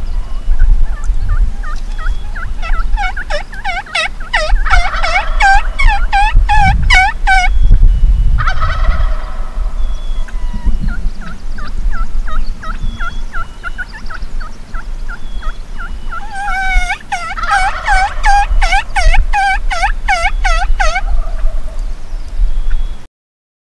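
Merriam's wild turkey gobblers gobbling, long rapid rattling gobbles repeated one after another, loudest in a run a few seconds in and again near the end with fainter gobbles between. The sound cuts off suddenly near the end.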